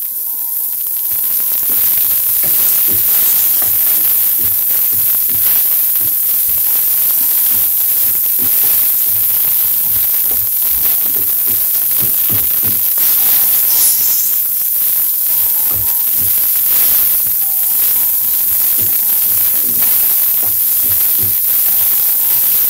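Mushrooms frying in spiced onion-tomato masala in a nonstick wok, sizzling steadily, with a wooden spatula stirring and knocking against the pan now and then. The pan is cooking in its own oil with no water added.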